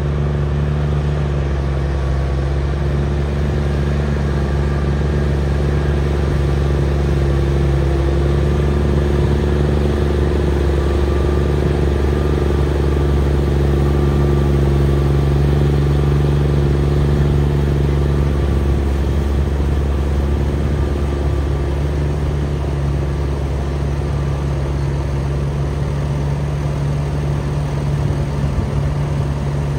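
Claas Xerion tractor's engine running steadily under load as it pulls a cultivator across the field, a constant drone that swells slightly midway as it passes closest.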